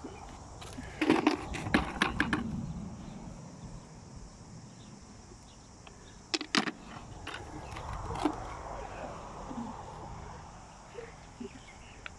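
Footsteps on a stony beach: pebbles and rocks clacking and knocking underfoot in irregular clicks, busiest about a second in and again past the middle.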